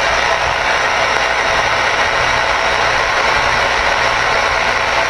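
Stryker SR-497HPC CB radio's speaker giving a steady, loud static hiss from the receiver, with a low hum underneath that swells and fades every second or so.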